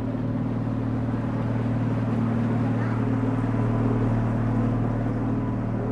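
Small sightseeing boat's engine running steadily with an even low hum.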